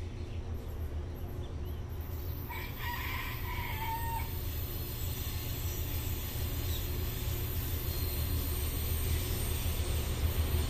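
Low rumble of an approaching loaded freight train's diesel locomotives, growing steadily louder. About two and a half seconds in, a rooster crows once.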